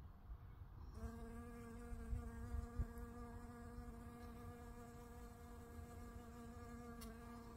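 Steady buzz of a honeybee's wings, a single even hum that starts abruptly about a second in, over a low rumble, with a soft low bump about three seconds in.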